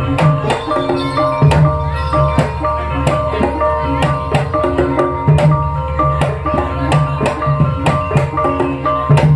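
Javanese gamelan-style music accompanying an ebeg horse-trance dance: kendang hand-drum strokes in a steady repeating beat, over struck pitched percussion playing a repeating figure.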